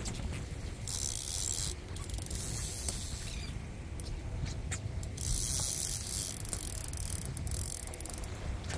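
Big conventional fishing reel being cranked in against a hooked fish, its gears and ratchet clicking. Two short hissing spells come about a second in and about five seconds in.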